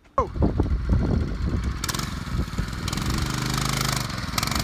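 Single-cylinder four-stroke Predator 212 cc engine on a mini bike running, starting suddenly with its revs dropping, then running unevenly before settling to a steady note about three seconds in. A rushing hiss rises over it from about two seconds in until near the end.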